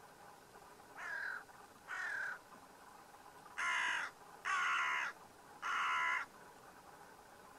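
A crow cawing five times: two fainter caws, then three louder ones in quick succession.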